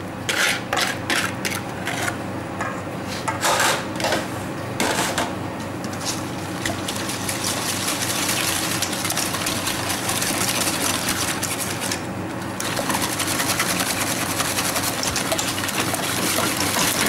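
A wire balloon whisk beats eggs into melted chocolate and butter in a stainless steel bowl. At first there are a few separate knocks and scrapes. From about six seconds in comes a fast, steady rattle of the wires against the bowl, broken by a brief pause near the three-quarter mark.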